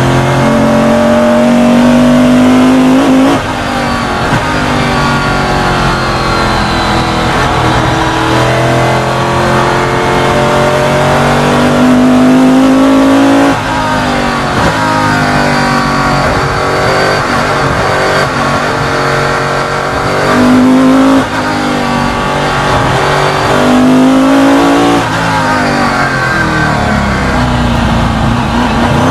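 Superlite Eagle Coupe race car engine at full throttle, heard from the cockpit. Its pitch climbs and then drops sharply at gear changes about three seconds in and again around thirteen seconds, falls away as the car slows, and rises in several short revs near the end.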